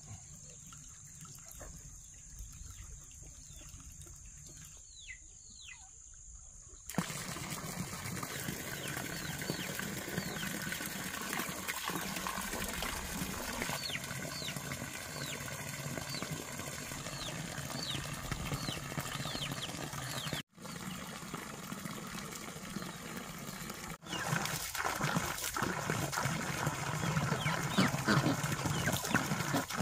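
Water from a hose falling in a stream and splashing into a small concrete pond, a steady splashing that starts suddenly about seven seconds in and grows a little louder near the end. Short chirps from birds sound throughout, over a quieter stretch at first.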